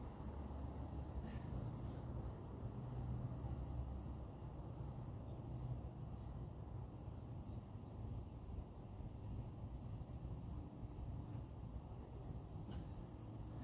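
Faint low hum under a steady, high-pitched chirring of insects such as crickets.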